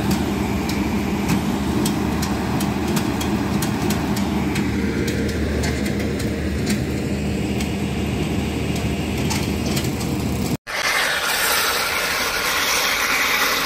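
Horizontal directional drilling rig running steadily as it pushes drill pipe, with irregular sharp clicks over the engine. About ten and a half seconds in the sound cuts out for an instant and gives way to a steady rushing hiss.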